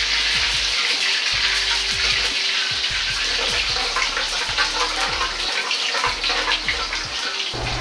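Oil in a wok sizzling steadily as it is brought up to high heat, with a ladle stirring it and scraping and clicking against the pan, the clicks more frequent in the second half.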